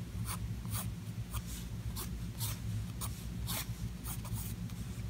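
Pencil sketching on thick sketchbook paper: short scratchy strokes of the lead across the page, irregular, about two to three a second.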